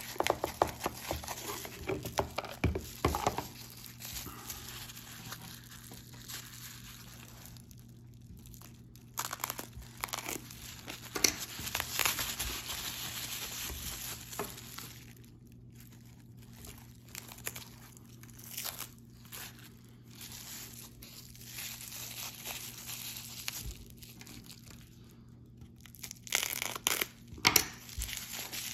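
Bubble wrap crinkling and rustling as it is handled and unwrapped by hand, in uneven spurts of sharp crackles with a few short pauses.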